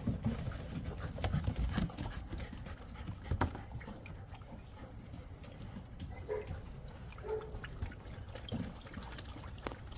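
Golden retriever puppies' paws clicking and scrabbling on wet wooden deck boards, strongest in the first few seconds, with water sloshing as a hand swishes in a plastic kiddie pool.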